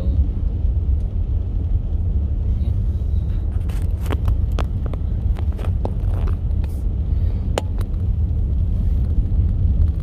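Steady low rumble of a car driving slowly on uncleared, snow-covered roads, heard from inside the cabin, with a few light clicks and taps in the middle.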